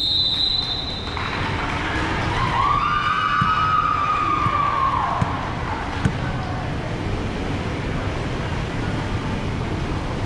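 Crowd and pool noise during a water polo game, with one long tone that rises and then falls, starting about a second in and lasting about four seconds, and two sharp clicks a second apart about halfway through.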